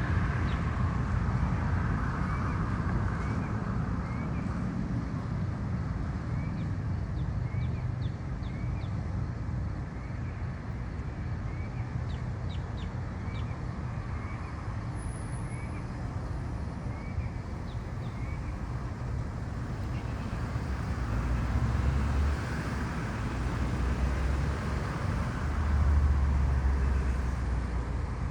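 A small bird giving short, rising chirps about once a second for the first half or so, over a steady low outdoor rumble that grows heavier in the last several seconds.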